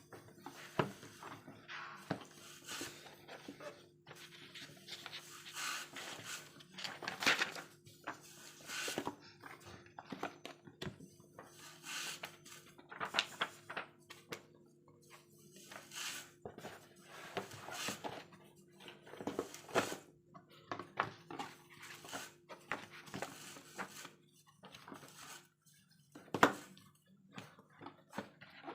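Irregular rustling, tapping and knocking of books and their packaging being handled, with a sharper knock near the end, over a faint steady hum.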